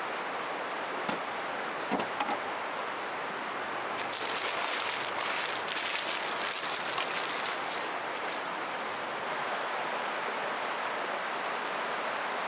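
Steady rushing of a flowing river, with campfire crackles: a few sharp pops about two seconds in and a busier spell of crackling from about four to seven seconds.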